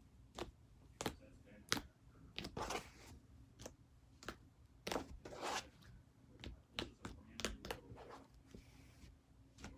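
Fingers poking and pressing soft butter slime, giving a string of sharp sticky clicks and small pops about one or two a second, with a couple of longer squishes.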